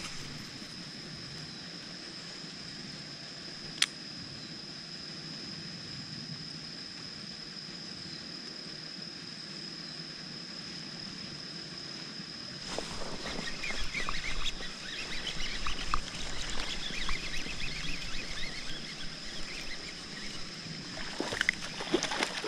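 A steady high-pitched insect drone, with one sharp click about four seconds in. About halfway through, a Whopper Plopper topwater lure is reeled across the surface, its spinning tail plopping and gurgling, and near the end a bass strikes it with a splash.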